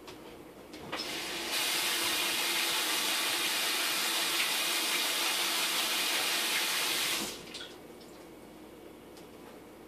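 Kitchen faucet running for about six seconds, starting about a second and a half in, then shut off.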